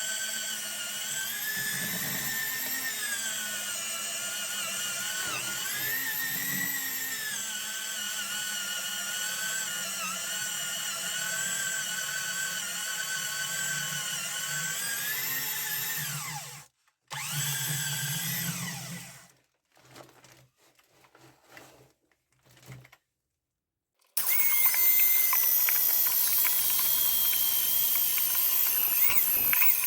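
Electric drill running steadily while boring anchor holes, its whine wavering a little in pitch under load. It stops about 16 seconds in, runs again briefly, and after a short pause a louder, higher power-tool whine starts up near the end.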